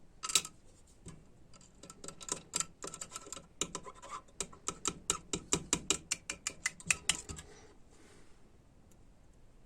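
Light metallic clicks and taps, several a second, as a spring and cylinder are handled and fitted into an automatic transmission valve body. The clicking stops about seven seconds in.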